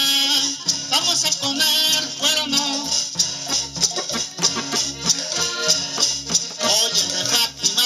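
Gabbanelli diatonic button accordion playing a norteño tune with a steady beat, while a man sings along.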